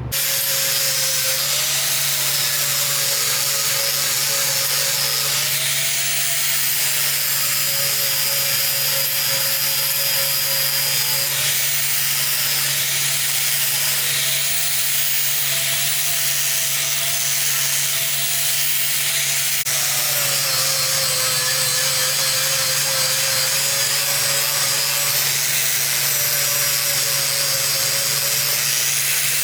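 Handheld grinder running steadily against the weld seams of a steel bumper during post-weld cleanup. Its motor pitch wavers a little as it works, dropping somewhat about two-thirds of the way through.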